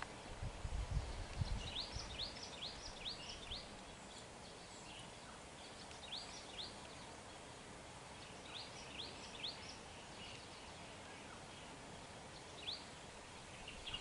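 Faint bird calls: short rising whistled notes in quick runs of four to six, repeating every few seconds over a steady outdoor hiss. Low rumbles in the first second or so.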